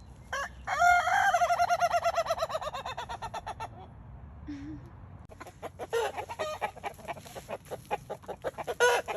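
Laughing rooster crowing: a long crow broken into rapid staccato notes that slowly fall in pitch. About five seconds in comes a second run of quick, rapid chicken calls.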